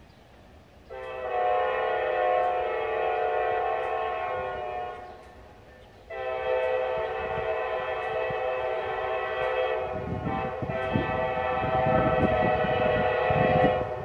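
Diesel locomotive air horn, a steady multi-note chord, sounded twice: a long blast starting about a second in, then a longer one from about six seconds that runs almost to the end. A low rumble builds under the second blast in its last few seconds.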